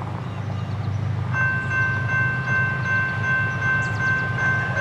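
Diesel locomotive's air horn, a Norfolk Southern GE ES44DC at the head of a grain train, sounding a steady multi-note chord. It starts about a second in and is held through the rest, over a low rumble from the approaching train.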